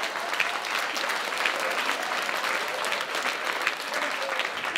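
Audience applauding, a dense steady crackle of many hands clapping.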